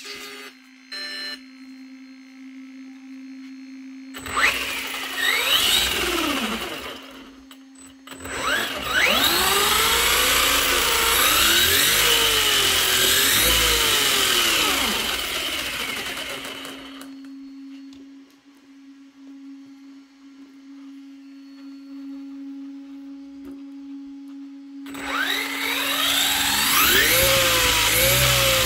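Brushless-motor RC monster truck revved with its wheels spinning free: a motor and drivetrain whine that climbs and falls with the throttle in three bursts, the longest about eight seconds, the last still rising at the end. A steady low hum runs between the bursts.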